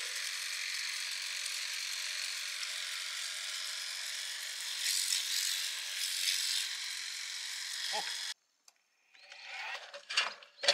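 A small power tool's motor running steadily with a high whir, cutting off suddenly about eight seconds in, followed by a couple of brief knocks near the end.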